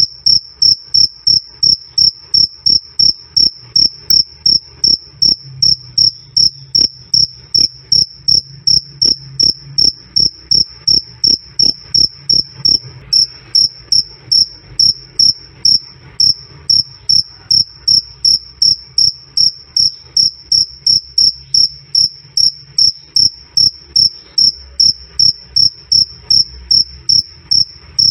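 A single male cricket (jangkrik) chirping loud and clear: a high chirp repeated steadily, about two and a half times a second.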